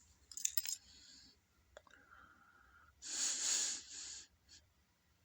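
A man's breathing as a sneeze builds: faint clicks and rustles, then two hissing breaths about three and four seconds in, the first the louder.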